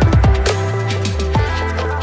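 Electronic background music with a deep bass line that drops in pitch twice, over steady synth tones and a regular beat.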